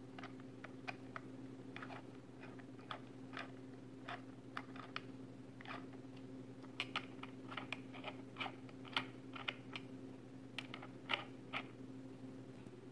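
Small socket ratchet with a Torx bit clicking in short, irregular runs as the air cleaner backing-plate screws are driven in, with the clicks coming thickest in the second half. A steady low hum runs underneath.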